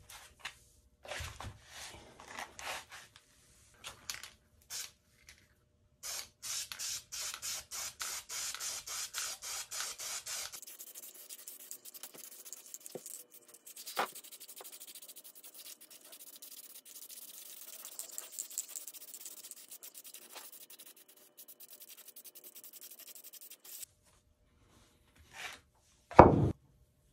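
Cardboard stencil rustling and scraping as it is laid and pressed flat, then a spray paint can hissing in long steady passes of flat tan paint over the stencil. Near the end a sharp, loud rustle of cardboard as the stencil is handled.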